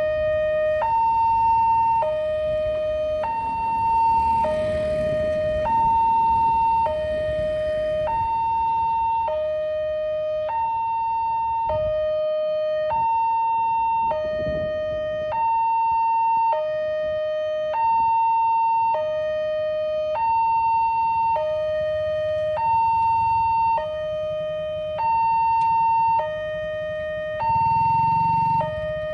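Railway level-crossing warning alarm sounding a two-tone electronic signal: a higher and a lower tone alternate, each held about a second, repeating without a break over a low traffic rumble.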